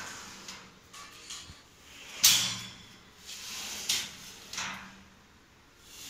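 Stainless steel pull-out kitchen baskets sliding on their Godrej drawer runners: a sharp metal clack about two seconds in, then lighter rattles and clicks of the wire frames.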